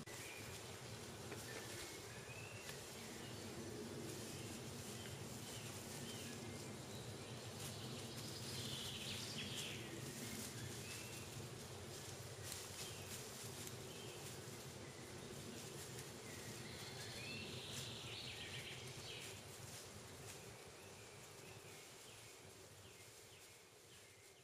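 Faint woodland ambience: birds calling now and then in the distance over a steady low drone, with scattered soft clicks and rustles. It fades out near the end.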